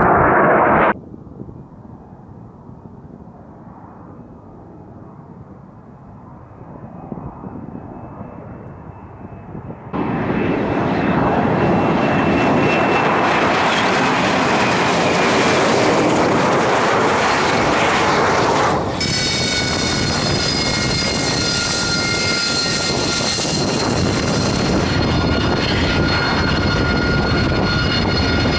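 AV-8B Harrier II jet noise across several cuts. First it is a distant, quieter jet sound. From about ten seconds in there is loud jet-engine noise as the Harrier lifts off. From about nineteen seconds in its turbofan gives a steady high-pitched whine with several tones over the rumble.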